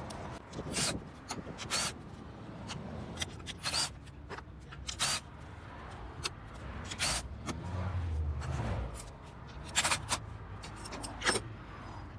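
Handling noise: irregular sharp clicks and knocks, roughly one a second, with some rubbing and scraping. A low rumble swells about eight seconds in.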